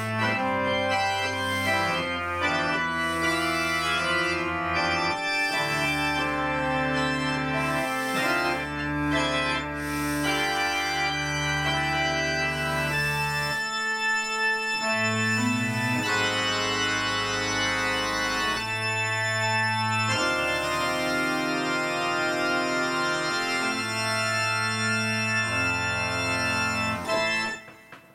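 Three-manual digital organ playing a many-voiced piece in full registration, with long held bass notes under the moving upper parts. The sound breaks off abruptly just before the end.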